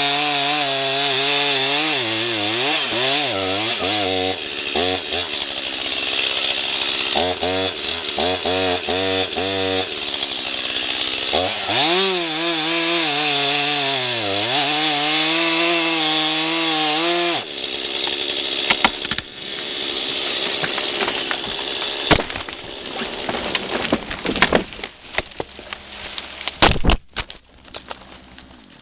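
Two-stroke chainsaw running under cutting load, its pitch rising and falling as it bogs and frees up. It stops abruptly about two-thirds of the way through and is followed by a scatter of sharp cracks and snaps that grow sparser toward the end.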